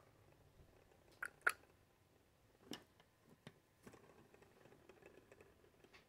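Several faint clicks and taps from a hand handling a small plastic toy spinner fan. The loudest two come a quarter second apart just over a second in, with softer ones a second or two later.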